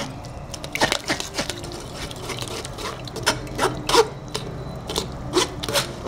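A spoon scraping and pressing wet, coarsely ground beetroot and tomato pulp against a stainless-steel mesh strainer, in irregular strokes. It is squeezing the pulp and juice through the mesh and holding back the seeds.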